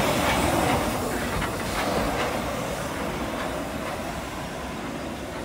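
Hunslet Austerity 0-6-0 saddle-tank steam locomotive moving slowly in reverse, with steam hissing and a few clicks from its running gear on the rails. It gets steadily quieter as the locomotive draws away.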